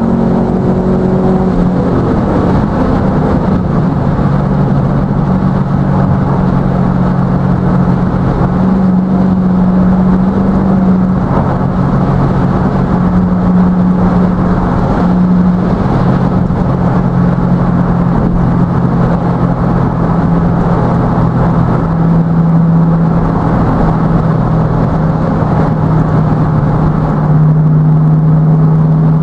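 A V8 car cruising at motorway speed: a steady low engine drone over constant tyre and road noise, the engine note dipping and settling about two seconds in.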